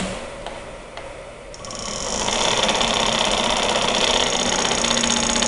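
Homemade reed switch electric motor with a small propeller starting up: a few faint clicks, then about a second and a half in a fast buzzing rattle builds as the motor spins up, settling into a steady run.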